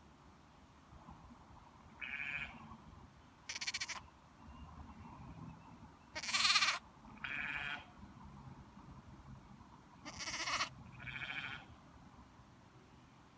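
Baby lamb bleating: six short baas with pauses between them, the loudest about halfway through.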